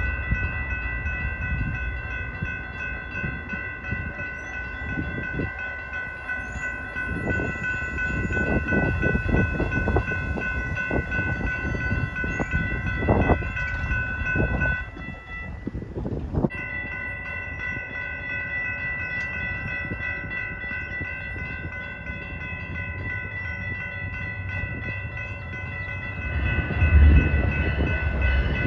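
Railroad crossing bells ringing steadily while a passenger train rolls through, its wheels clacking over the rail joints. The ringing breaks off for a moment about halfway, then resumes. Near the end the low rumble of an approaching diesel locomotive grows louder.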